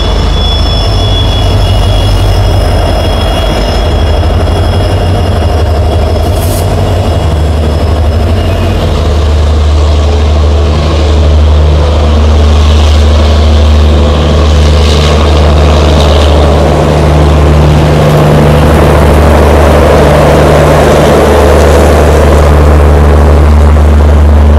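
Diesel locomotive engine running with a deep, steady drone. A thin high squeal from the train's wheels fades out in the first several seconds.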